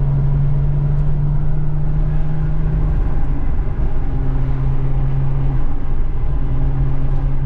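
Nissan 350Z's V6 engine and road noise heard from inside the car while driving: a steady low drone that holds one pitch, shifting slightly about three seconds in and again near six seconds.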